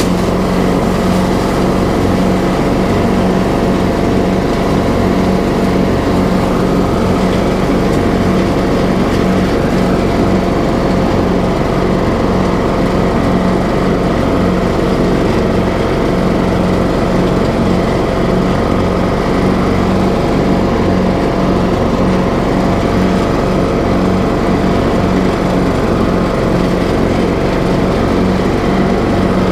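Troy-Bilt riding lawn mower engine running steadily at cutting speed while the mower drives and cuts grass, with an even, unbroken engine hum.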